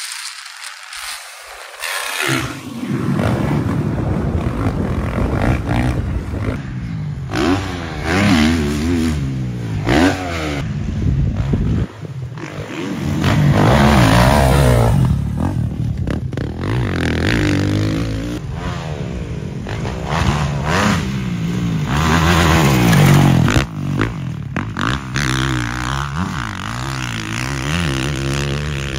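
Dirt bike engine revving, its pitch rising and falling again and again, starting about two seconds in, with scraping and clattering noise alongside.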